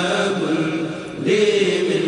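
Religious chanting in Arabic: a voice holding long, slowly bending notes, with a short breath about a second in.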